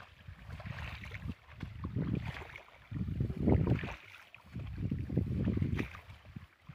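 Wind buffeting the microphone in uneven gusts, each about a second long, as a low rumbling.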